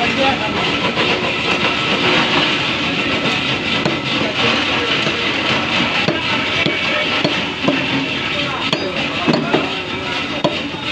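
Steady din of a busy meat stall: background voices over a continuous noisy rumble, with a few light knocks of the butcher's knife on the wooden chopping block in the second half.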